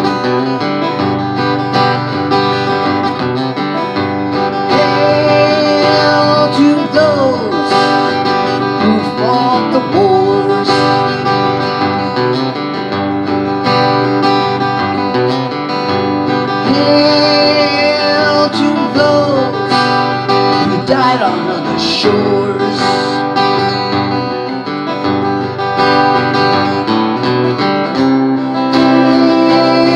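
Acoustic guitar strummed and picked, an instrumental passage between verses of a folk-style song.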